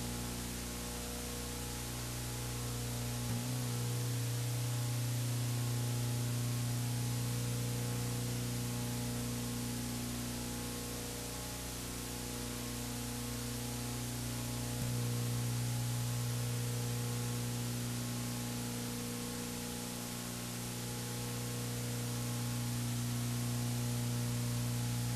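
Steady analog tape hiss with a low mains hum and its overtones from old U-Matic videotape playback, with no speech or music over it. The hum shifts slightly a few seconds in and again about halfway.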